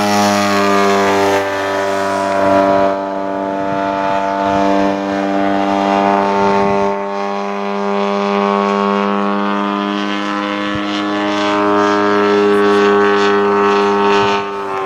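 Radio-controlled model airplane's engine and propeller running at steady high revs, a constant buzzing drone whose pitch drifts only slightly.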